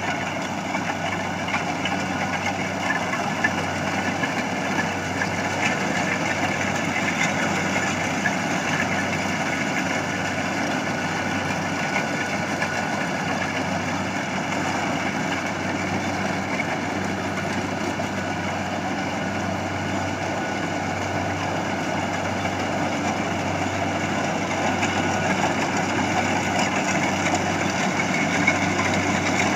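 Rice combine harvester's engine running steadily, a continuous low drone with machinery noise over it.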